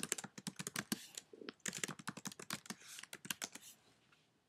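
Quick typing on a computer keyboard, a fast run of light keystrokes that stops near the end.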